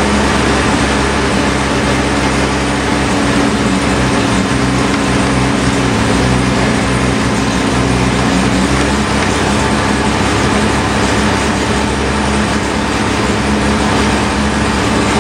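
Freshly rebuilt 12A two-rotor rotary engine of a 1984 Mazda RX-7 running at a steady fast idle, around 2,000 rpm, on partial choke as it warms up, heard from inside the cabin.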